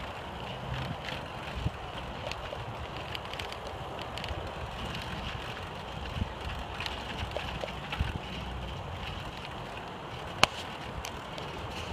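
Mountain bike rolling along a dirt singletrack trail: steady tyre and drivetrain noise with scattered clicks and knocks as it rides over sticks and roots. One sharp knock comes near the end.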